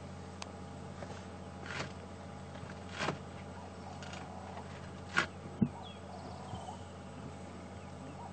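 Young African elephants moving and sparring in dense bush: a few sharp cracks and snaps of wood or tusk, the loudest two close together about five seconds in, over a steady low hum.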